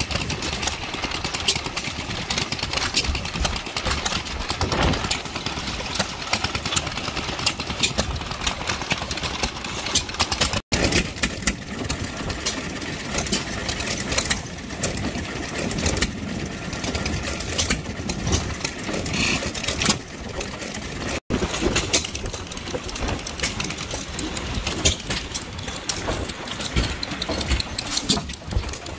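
Antique single-cylinder stationary gas engines with big flywheels running. The sound breaks off abruptly twice as it cuts from one engine to the next.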